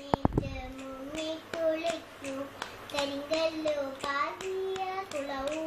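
A single voice sings a Malayalam poem in a simple melody, holding and sliding between notes. A quick run of sharp claps or clicks sounds in the first half-second.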